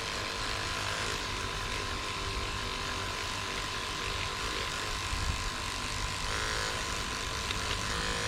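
Electric toothbrush fitted with a 3D-printed sanding attachment running with a steady whine, its foam sanding pad rubbing on the seam line of a polyurethane lure.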